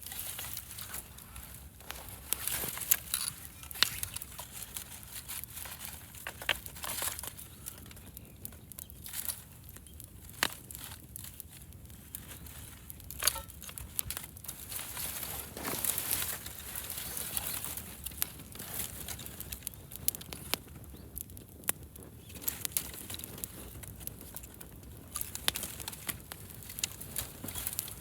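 Wood fire crackling, with irregular snaps and clicks and a few louder cracks.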